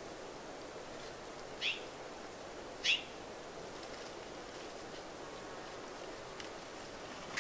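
A bird calling twice: two short, high, downward-sweeping notes about a second apart, over a steady hiss.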